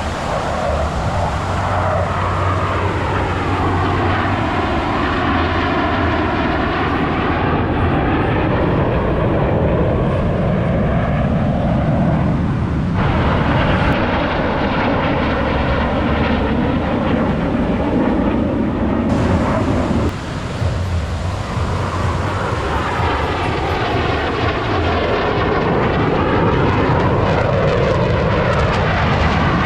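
F/A-18 Super Hornet fighter jets flying past, their twin turbofan engines making loud, continuous jet noise with sweeping, arching tones as the aircraft pass. The sound changes abruptly twice, about halfway through and again about two-thirds of the way in.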